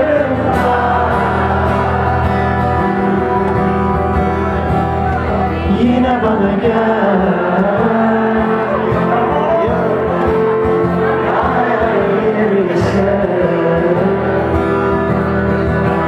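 Live acoustic music: a male voice singing over acoustic guitar.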